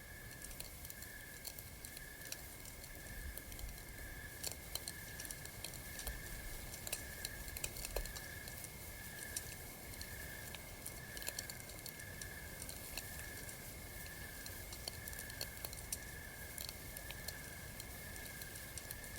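Campfire crackling, with irregular sharp pops and snaps throughout, over a steady high pulsing trill of about one pulse a second.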